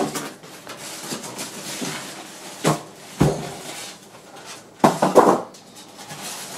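Polystyrene foam packing and plastic wrap being handled as a bread maker is worked out of its box: rustling and scraping, with sharper knocks and squeaks about three seconds in and a louder cluster about five seconds in.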